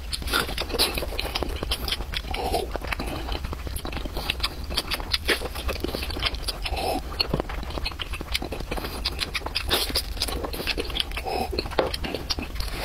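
Close-miked chewing of braised pork skin rolled in a thin pancake: a quick, continuous run of wet mouth clicks and smacks, with a few short low mouth sounds spaced a few seconds apart.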